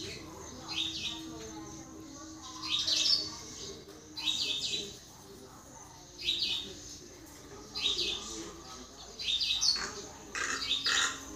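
Common myna calling: short clusters of sharp, high notes, repeated every second or two.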